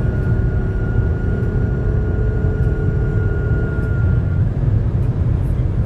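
BMW X5 G05 running above 200 km/h: a heavy, steady road and wind rumble with a thin, steady high-pitched whine over it. The whine drops out about four seconds in. This is the unwanted noise the SUV makes at that speed.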